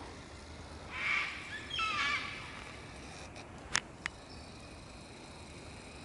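Lyrebird singing: a rasping burst about a second in, then a quick falling run of stepped notes, followed by two sharp clicks near the middle.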